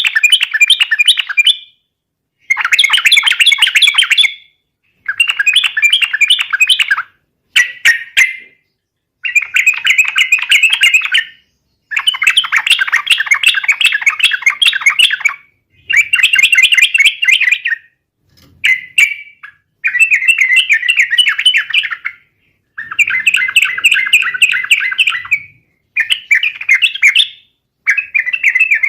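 Yellow-vented bulbul (trucukan) singing in full voice: about a dozen loud, bubbly, rapidly warbled phrases of one to three seconds each, with short pauses between them.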